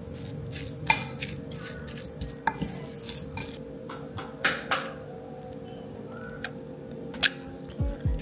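Metal spoon stirring ground meat and chopped onion in a glass Pyrex measuring jug, with scattered sharp clinks of the spoon against the glass.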